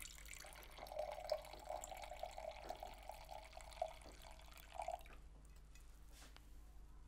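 Red wine being poured into a stemmed wine glass: an uneven splashing pour that stops about five seconds in.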